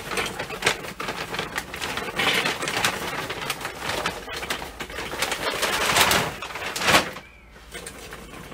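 Weber charcoal briquettes poured from their bag into a charcoal ring in a kettle grill, clattering and rattling against each other. The pouring stops about seven seconds in.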